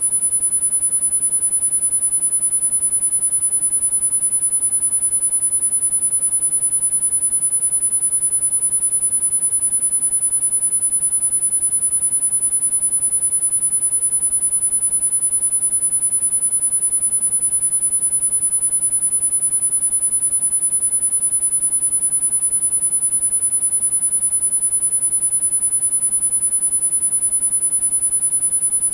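Steady high-pitched pure sine tone of about 10 kHz, held without change: an electronic tinnitus-frequency tone used for masking, over a faint hiss.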